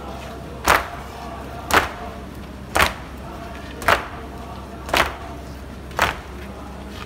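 A crowd of mourners beating their chests in unison (latm), a sharp slap about once a second, in the pause between chanted lines.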